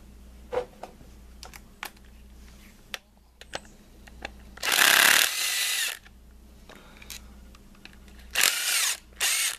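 Handheld power driver spinning 10 mm bolts out of a Honda D16 water pump: a few light clicks of the socket going onto the bolts, then three short whirring runs, the longest about halfway in and two brief ones near the end.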